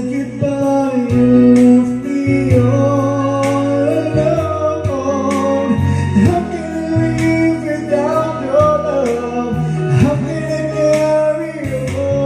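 Karaoke song playing from a Platinum Kapitan 2 DVD karaoke player: a slow guitar-backed ballad with a voice singing the melody.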